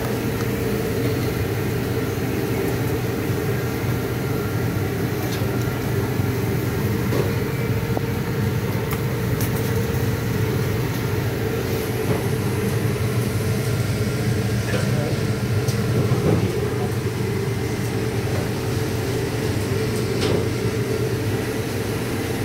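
Steady low mechanical hum in a restaurant's food-service area, with a few light clicks scattered through.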